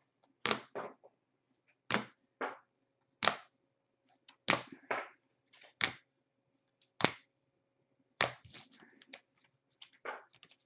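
Hard plastic top loaders holding trading cards clacking against each other as a stack is flipped through one card at a time: a sharp clack about once a second, then a quicker run of lighter clicks near the end.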